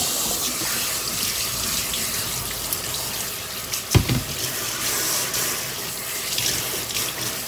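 Kitchen tap running into a stainless steel sink, water splashing over spinach in a plastic colander as it is cooled under the flow. The water comes on at the start, and there is a single dull knock about four seconds in.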